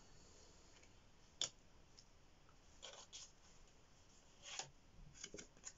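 Near silence, broken by a few faint taps and rustles of tarot cards being handled and laid down on a table.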